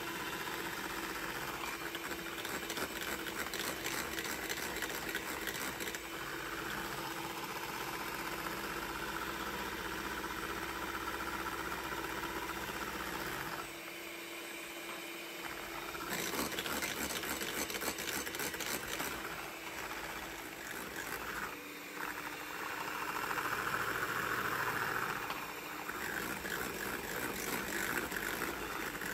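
Electric hand mixer running, its beaters whisking runny egg-yolk batter in a glass bowl. About halfway through the sound drops for a couple of seconds, then picks up again, with another brief dip later on.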